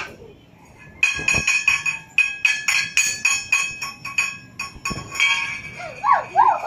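A steel dog bowl clattering: rapid metallic taps, several a second for about four seconds, each with the same bright ring. Near the end come a few short, high cries that glide in pitch.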